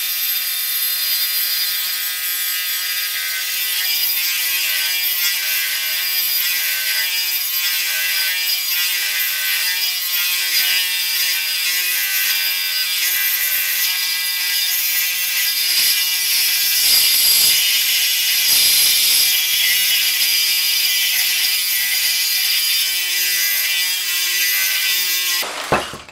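Cordless Metabo SSE 18 LTX BL reciprocating saw cutting through cast iron pipe: a steady motor whine under a harsh metal-on-metal rasp from the blade. It stops suddenly near the end as the cut finishes.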